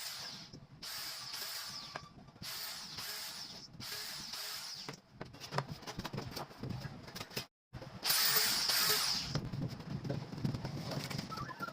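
Repeated hissing strokes of a tool working wood, about two strokes a second with short gaps between them, followed by scattered knocks and a louder group of strokes near the end.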